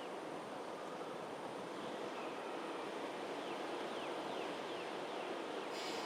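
Steady hum of distant traffic under morning outdoor ambience. In the middle, a bird gives a run of about five short, faint falling notes, roughly two a second. A brief hiss comes near the end.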